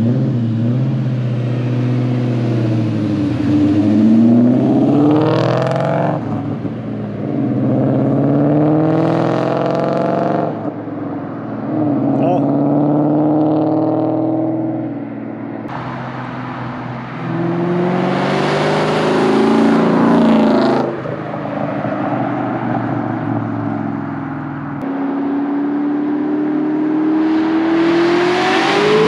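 Cars with aftermarket headers and loud exhausts accelerating past in a series of drive-bys. The engine pitch climbs and drops with the gear changes, and each pass is cut off suddenly by an edit.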